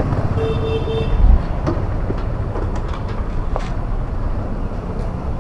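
TVS Apache RTR 160's single-cylinder engine and exhaust running at low speed as the motorcycle rolls slowly, a steady low rumble with a brief louder surge about a second in. A short steady beep, like a horn, sounds near the start.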